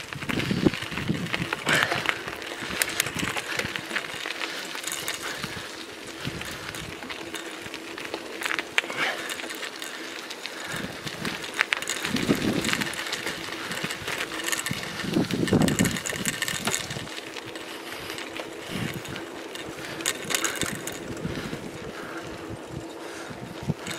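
Bicycle riding over a rough, patched tarmac road: continuous rattling and clinking from the bike, with a few low gusts of wind buffeting the microphone.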